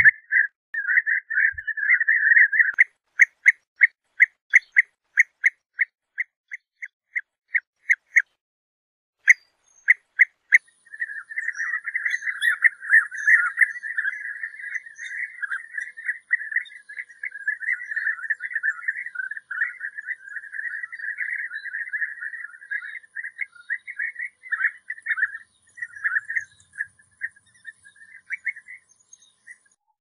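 European bee-eater calling: a run of rolling, trilled calls, then a string of short separate notes about three a second. After a brief pause about eight seconds in, a few more notes lead into a long unbroken run of trilled calls.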